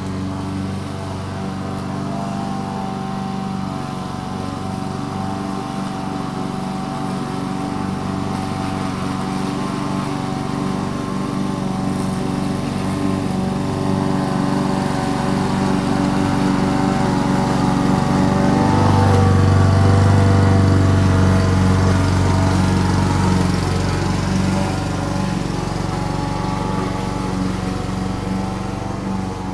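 Petrol lawn mower engine running steadily while cutting grass. It grows louder toward a peak about two-thirds of the way through as the mower passes close, then fades a little as it moves away.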